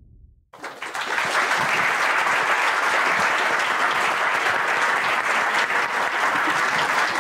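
A low rumble fades out, then an audience breaks into applause about half a second in and keeps clapping steadily.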